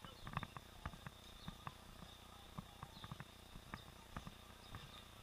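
Faint irregular clicks and knocks from a helmet camera in a sealed underwater housing being jostled as the bicycle rolls, heard muffled through the housing over a faint steady high tone.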